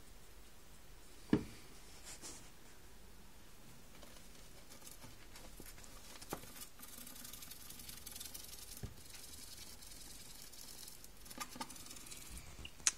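Gerbils scratching and rustling in sawdust bedding, faint and scratchy, with a few sharp knocks, the loudest about a second in.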